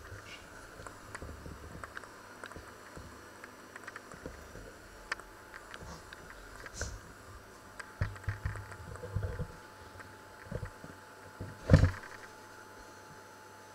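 Camera handling noise: soft low thumps and rubbing as the camera is moved about, with a cluster of bumps past the middle and one sharp, loudest knock near the end as it settles back into place.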